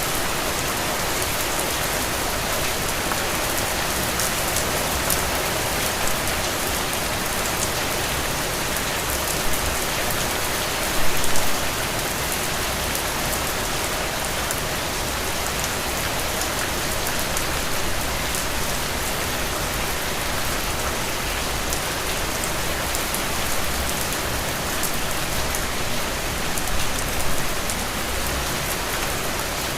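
Steady rain falling, a dense even patter of drops, with a couple of brief louder moments about eleven seconds in and near the end.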